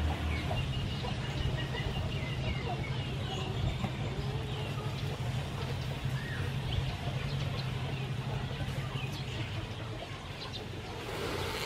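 Birds chirping and calling in short notes, over a steady low hum that fades out about nine seconds in.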